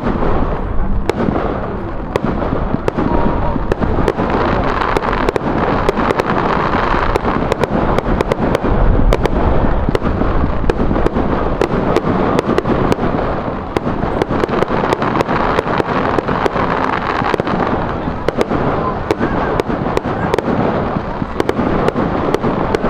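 Fireworks display going off continuously: a loud, sustained barrage with many sharp cracks and crackles throughout.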